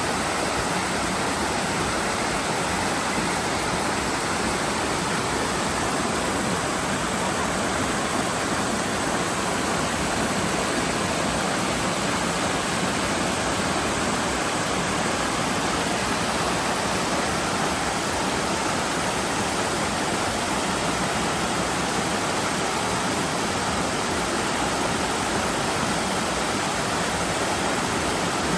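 Waterfall: falling water rushing steadily, an even hiss with no changes.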